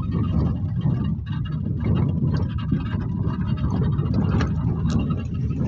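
Safari vehicle engine running as it drives, a steady low rumble.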